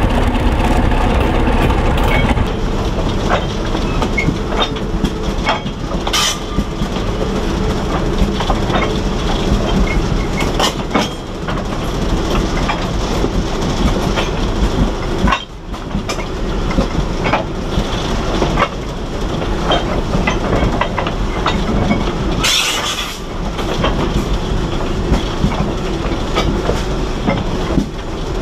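Small Plymouth gasoline locomotive rolling along the track with a caboose in tow. Its running noise is steady under the wheels' irregular clicking and clatter over the rail joints.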